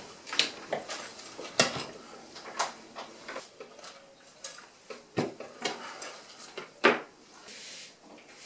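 Hand tools clinking and knocking against a leaded stained-glass panel on a workbench: irregular sharp clicks and taps, with two louder knocks about one and a half and seven seconds in.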